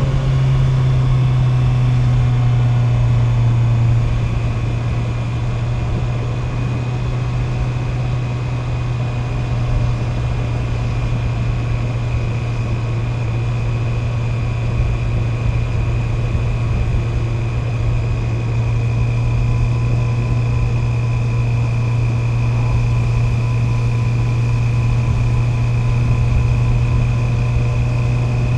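Honda CB650R's inline-four engine running at steady revs while the bike cruises, its note easing slightly about four seconds in, with a faint steady high whine above it.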